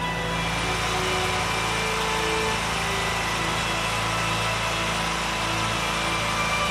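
John Deere 317 garden tractor's Kohler KT17 twin-cylinder engine idling steadily.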